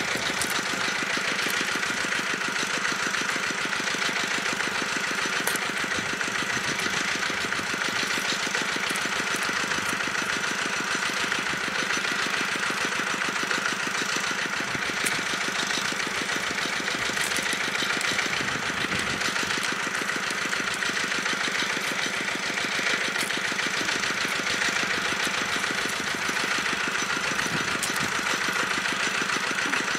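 Engine of a pond-draining water pump running steadily, a fast, even chugging that does not change.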